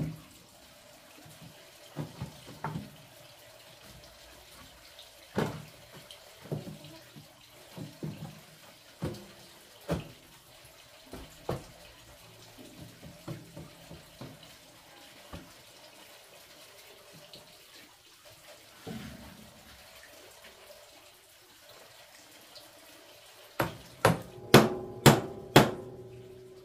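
Scattered knocks and clunks of bricks and rebar being set into a wooden stove-slab form, then near the end a quick run of about seven sharp, ringing strikes from a metal hand tool knocking on the form.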